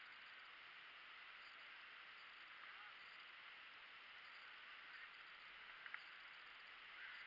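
Near silence: a faint steady hiss, with a couple of faint ticks about six seconds in.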